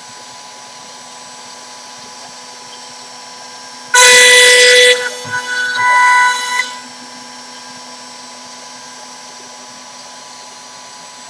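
CNC router spindle milling a wooden turkey box call blank: a steady spindle whine, rising twice to a loud, shrill pitched scream as the bit bites into the wood, about four seconds in and again about six seconds in.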